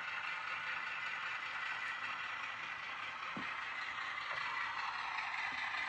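HO-scale model freight train running along the track: a steady whirring hiss of wheels on rail and the locomotive's motor, with a faint click just past halfway.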